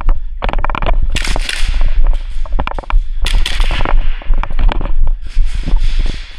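Airsoft gunfire in a close-quarters game, from guns such as an HPA-powered AAP01 pistol: many sharp shots in quick succession, some in rapid strings, with stretches of rushing noise between them.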